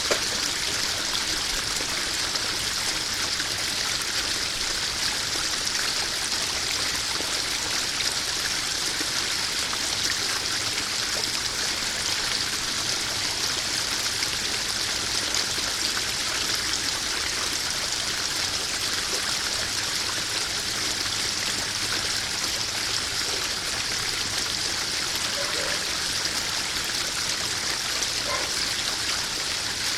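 Small koi pond waterfall splashing and trickling steadily into the pond.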